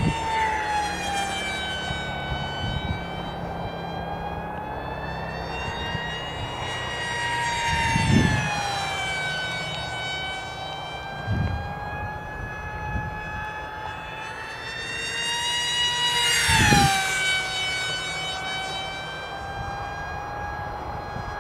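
Radio-controlled model jet in flight, its engine giving a steady high whine made of several tones. It makes three fly-bys: at each one the whine swells and its pitch drops, with a low whoosh as it passes.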